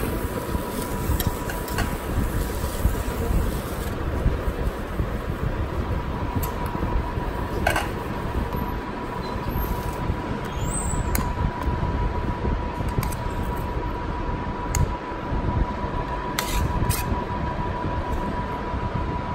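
Steady low rumbling background noise with a thin steady whine running through it, and a few short sharp clinks of stainless-steel plates and a serving spoon as biryani is served.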